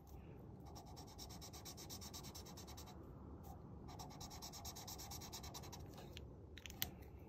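Marker tip scribbling back and forth on paper, colouring in two small squares: a faint scratchy rubbing in two spells with a short pause about three seconds in.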